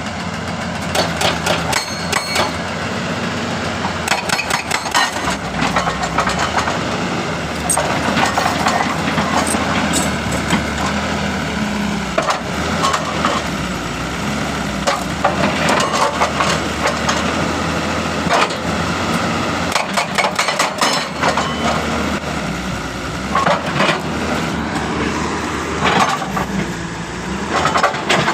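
Hitachi excavator's hydraulic breaker hammering and cracking rock in rapid runs of impacts with short pauses between them, over the steady running of the machine's diesel engine.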